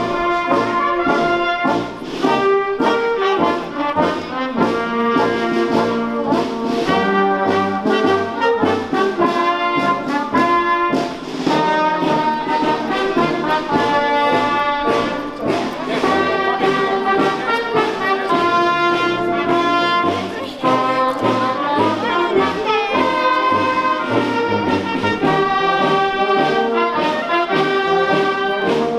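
Brass band playing a tune, many horns sounding together with steadily changing notes and a regular beat, with short breaks between phrases.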